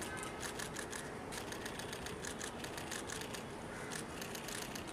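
Many camera shutters clicking in quick, overlapping bursts, the sound of several photographers shooting at once.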